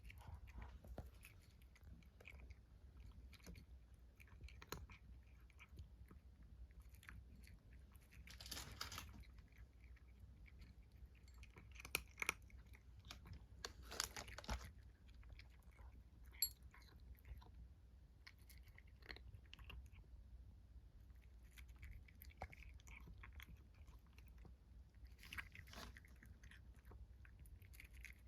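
Kitten chewing food: a quiet, irregular run of small wet clicks and crunches, with a few louder bites a little before the middle.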